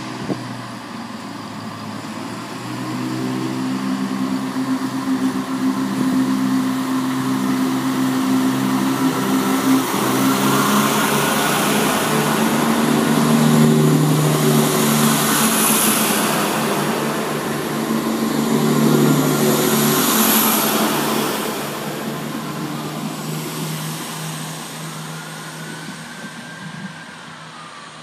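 Chiltern Railways Class 168 Clubsman diesel multiple unit departing: its diesel engines run up under power as it pulls away. The sound grows louder as the carriages pass close by, with a hiss of wheels on the rails at the loudest points, then fades as the train draws off into the distance.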